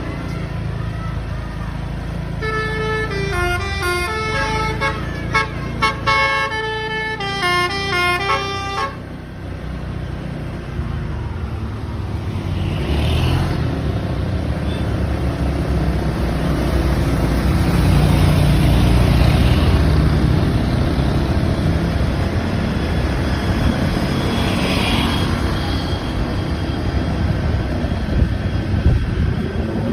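A bus's telolet horn playing a quick multi-note tune, the notes stepping up and down for about six seconds. Then the bus's engine rumbles as it passes, loudest about two thirds of the way through.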